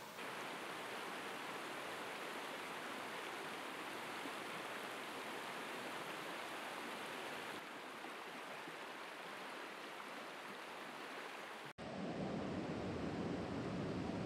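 Shallow, rocky mountain creek rushing over riffles and stones, a steady water noise. About twelve seconds in it cuts suddenly to a closer, louder and deeper rush of fast creek water.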